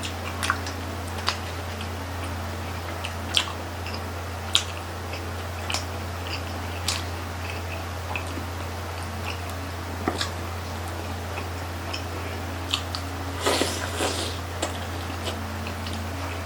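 Close-up chewing and biting of grilled chicken intestine (isaw), with scattered sharp clicks and a brief cluster of wetter, noisier sounds about 13 to 14 seconds in. A steady low hum runs underneath.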